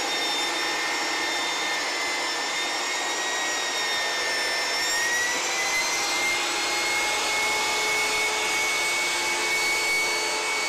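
Portable jobsite table saw running with a steady high whine while ripping a poplar board. The pitch sags slightly as the board is fed into the blade, then rises again about halfway through as the cut finishes.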